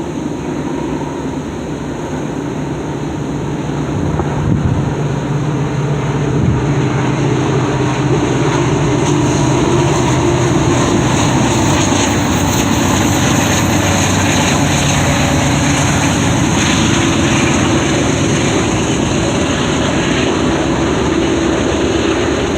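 Diesel locomotives of a freight train, a CN SD75I and a C40-8W, running under power. The engine hum grows louder over the first several seconds and then holds steady, with a high whine above it. Wind buffets the microphone.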